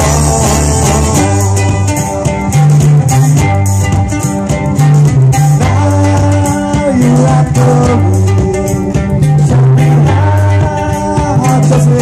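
Live amplified band music: ukuleles and electric guitar strumming over a bass guitar and drums, with sung vocals.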